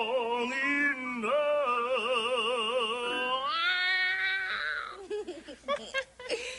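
A voice singing in an operatic style with strong vibrato, holding long wavering notes. It climbs to a high held note about three and a half seconds in, slides down, and breaks into short fragments near the end.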